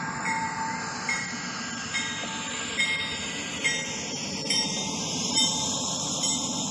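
Motorised LEGO toy train running past on plastic track: a steady electric-motor whir with wheels clicking over the track joints about once a second.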